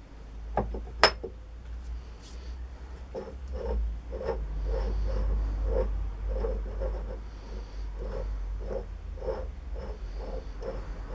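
A sharp metallic clink, then a hand file worked back and forth over a steel plate in even strokes, about two a second.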